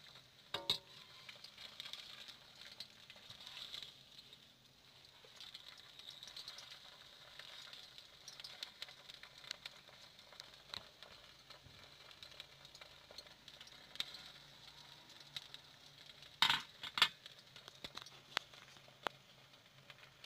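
A spatula clicking and scraping against a non-stick wok while battered lotus fries in a little oil with a faint sizzling hiss. There are two sharper knocks about sixteen and seventeen seconds in.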